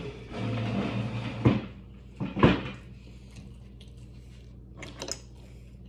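Wooden dining chair moved: a scrape lasting about a second, then two knocks about a second apart, the second the loudest, and a few faint clicks near the end.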